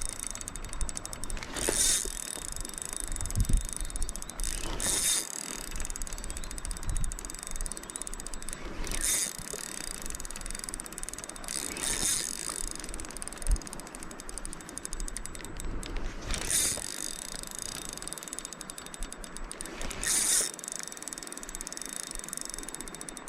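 Fishing reel being cranked, its gears clicking rapidly as line is wound in against a heavy load: a hooked fish, or a snag the angler isn't sure of. Louder surges come every few seconds.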